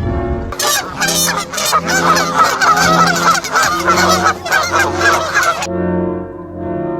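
Several geese honking loudly and harshly, their calls overlapping, over a background of sustained brass-like music. The honking stops abruptly about six seconds in, leaving the music.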